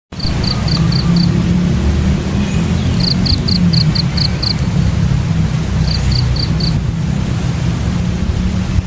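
A bird chirping in three quick series of short, evenly spaced high notes, about four to five a second, over a steady low rumble and hiss.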